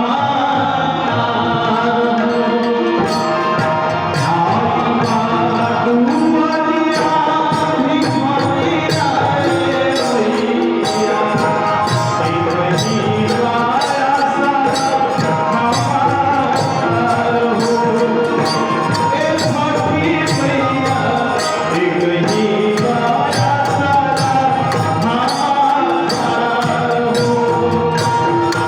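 Devotional folk-song accompaniment, mainly instrumental: a melody line over hand drums, with a steady jingling percussion beat that comes in a few seconds in.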